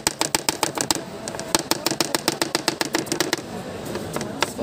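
Kitchen knife chopping onion on a plastic cutting board: quick, even strokes about six or seven a second, pausing a little over three seconds in and starting again near the end.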